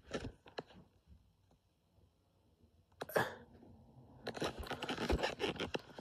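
Handling noise of a phone being moved around in the hand: scattered small clicks, near quiet for a couple of seconds, a sharper click with a short hiss about three seconds in, then steady rustling and rubbing from about four seconds in.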